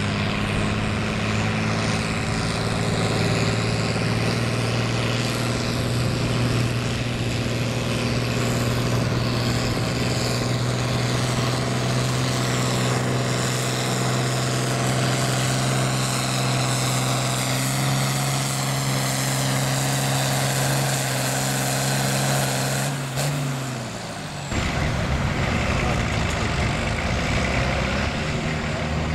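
A red farm tractor's engine at full throttle, pulling a weight-transfer sled in a tractor pull. It holds a steady high-revving note that sags a little in pitch as it bogs under the load, then drops away sharply about three-quarters of the way through, leaving a rougher, noisier engine sound.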